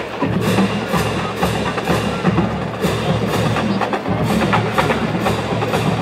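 Marching band drumline playing a percussion cadence, with sharp clicking hits about twice a second.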